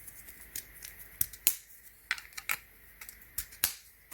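Irregular sharp clicks and taps, about eight of them, as the hard parts of a paintless dent repair puller tool kit are handled.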